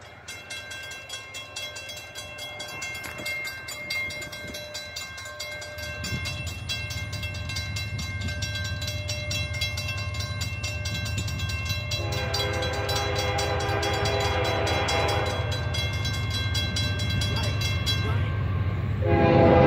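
Railroad crossing bell ringing rapidly as the gates come down, while the low rumble of an approaching freight train builds. The locomotive's air horn sounds a little past halfway for a few seconds, then again, louder, near the end.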